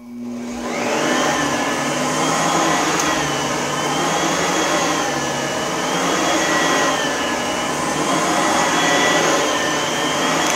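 Oreck upright vacuum cleaner switched on, its motor spinning up over about a second and then running steadily with a high whine that wavers slightly in pitch, starting to wind down at the very end.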